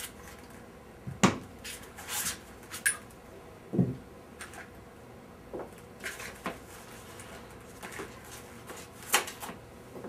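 Unpacking handling sounds: items lifted out of a cardboard box and set down on a table, heard as a scatter of separate knocks and rustles with quiet in between.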